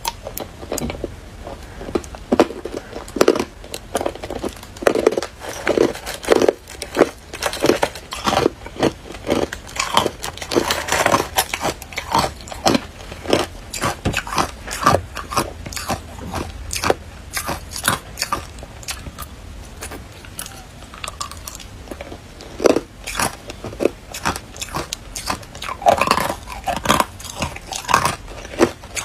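Hard clear ice being bitten and chewed in the mouth: a dense run of sharp cracks and crunches, several a second, that thins out for a few seconds past the middle.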